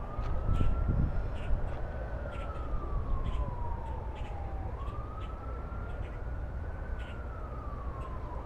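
Emergency vehicle siren in slow wail: a single tone rising and falling in pitch through about two full cycles, over a steady low rumble.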